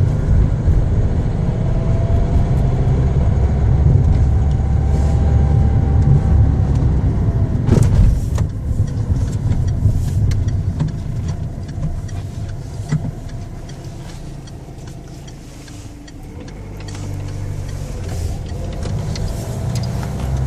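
Car engine running, the unusual engine noise the owner is concerned about. A faint whine rises and falls in the first several seconds and a sharp knock comes about eight seconds in. The engine sound drops off for a few seconds past the middle, then builds again.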